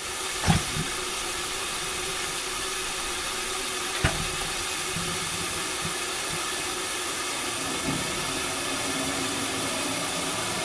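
Steady hiss of background room noise with a faint low hum, broken by a sharp knock about half a second in and another about four seconds in.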